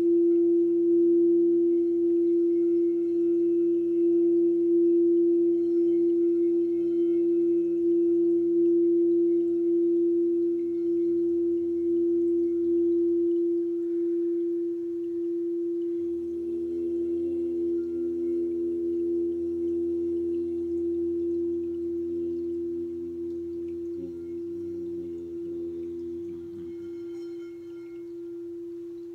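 A steady pure drone tone held throughout for sound healing, with fainter sustained tones underneath that shift about halfway through. It fades gradually over the last third.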